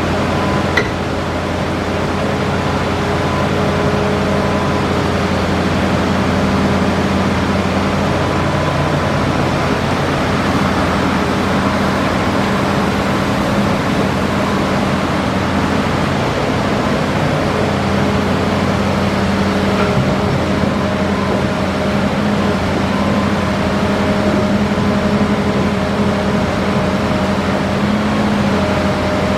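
Hitachi Zaxis 5G hydraulic excavator's diesel engine running steadily under working load, with a short knock about a second in.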